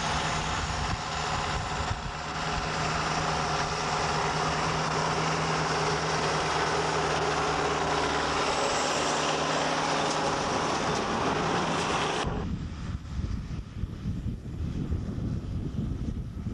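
International 785 XL turbo tractor's diesel engine running steadily under load as it pulls a round baler close past. About twelve seconds in the sound cuts off abruptly, giving way to quieter, gusty wind rumble on the microphone.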